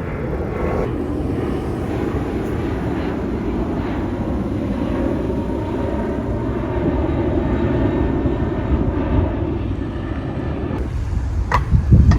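Steady low rumble of a moving vehicle, broken by a cut about a second in and another near the end. A loud gust of wind on the microphone comes just before the end.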